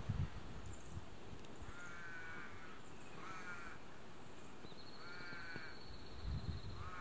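A bird giving harsh, drawn-out calls, three in a row a second or two apart, with a fourth starting at the very end.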